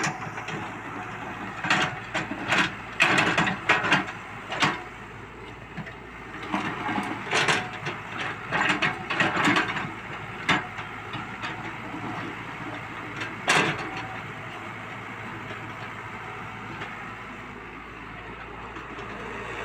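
Excavator engine running steadily, with a series of sharp clanks and clattering knocks from the working machine through the first two-thirds, then steadier running with fewer knocks.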